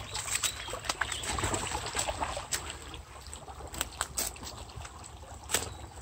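A shallow brook trickling over stones, with a Labrador's paws splashing through the water and many short sharp clicks and knocks of steps on stones and dry leaves.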